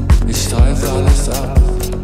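Deep house / deep tech track in a DJ mix: a steady four-on-the-floor kick drum about two beats a second with hi-hats, and a wavering synth sweep through the middle.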